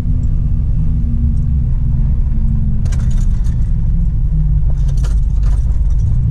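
Steady low engine and road drone of a 1999 Dodge pickup driving, heard from inside the cab, with a few brief light rattles about three and five seconds in.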